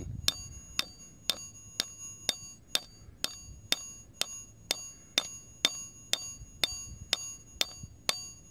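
Steel framing hammer tapping a part into a Stihl pole saw's gearhead housing, about two light taps a second. Each tap rings with a metallic ding as the part is driven toward its seat.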